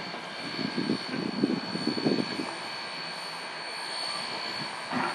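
Outdoor wind gusting on the microphone in irregular low rumbles over a steady hiss, with a faint steady high-pitched whine.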